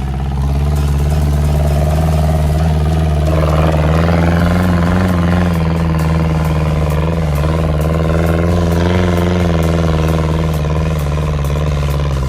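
Dune buggy engine running hard under throttle, its pitch wavering up and down as the revs change while driving over sand.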